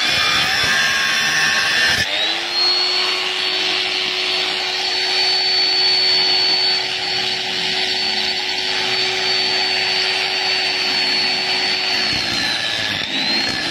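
Electric angle grinder with a thin cut-off disc. For the first two seconds it cuts steel plate with a wavering whine. After an abrupt break it spins up and runs free at a steady high whine for about ten seconds, then drops in pitch as the disc goes back into the steel near the end.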